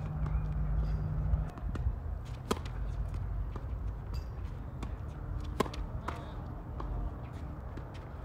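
Tennis ball struck by rackets and bouncing on a hard court: scattered sharp pops, the loudest about two and a half and five and a half seconds in, over a steady low rumble.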